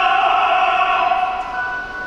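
Classically trained voice singing a zarzuela number in operatic style, holding a note that fades away about a second and a half in as the phrase ends.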